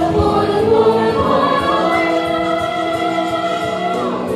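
A chorus of voices singing together, holding long, sustained notes that shift slowly in pitch and die away near the end.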